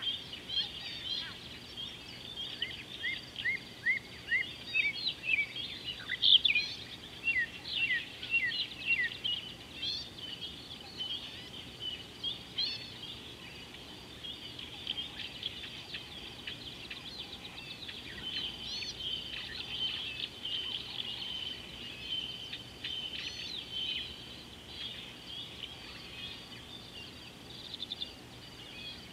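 A chorus of many wild birds chirping and calling at once, quick short notes that overlap, busiest in the first third and thinning to a steadier background of calls after.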